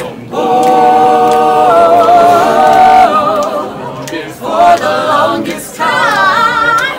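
A group of teenage boys singing a cappella in harmony, holding long chords, then, after a short break about four seconds in, two shorter phrases, the last rising.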